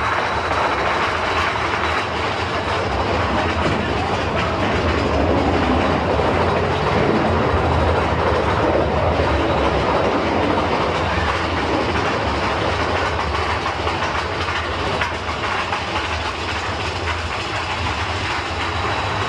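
A steady rumble and rattle of a vehicle in motion.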